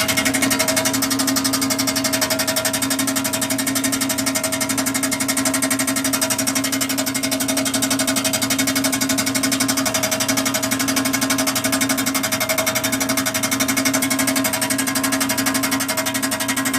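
1996 Chevrolet Impala SS's LT1 V8 running with a loud, steady, fast rattle, which the owner thinks comes from underneath the car; he does not know its cause.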